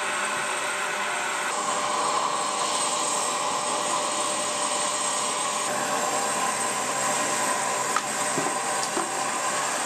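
Steady turbine whine and rushing noise from a CH-53E Super Stallion heavy-lift helicopter running on the ground, with a couple of faint clicks near the end.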